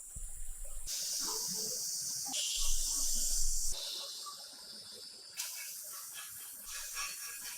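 Steady hiss of a compressed-air tool spraying or blowing, changing abruptly several times as if cut between short takes, with a low rumble underneath twice.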